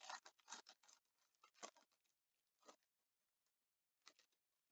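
Faint crinkling and rustling of a foil trading-card pack being opened, in quick short crackles over the first two seconds, then a few soft clicks as the cards are handled.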